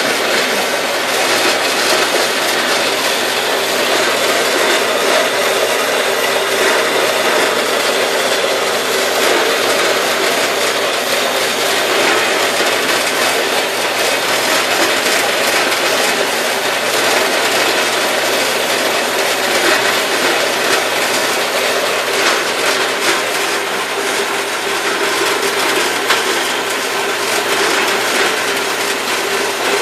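Harbor Freight 4x6 metal-cutting bandsaw running steadily, its blade sawing down through a piece of metal stock clamped in the vise.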